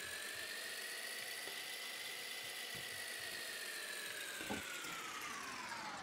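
Whirring sound effect: a steady hiss with a tone that climbs and then slowly sinks in pitch, with a faint knock about four and a half seconds in.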